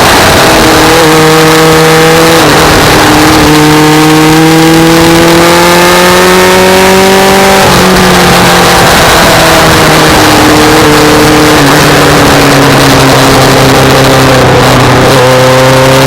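Motorcycle inline-four engine under way, Kawasaki GPX750R: it pulls up through the revs, drops sharply at upshifts about two and a half and eight seconds in, then eases off and picks up again near the end. Heavy wind noise rushes over the microphone throughout.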